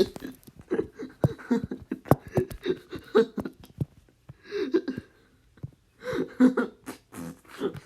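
A person wheeze-laughing: a run of short gasps and clicks broken by several brief pitched, squeaky vocal bursts.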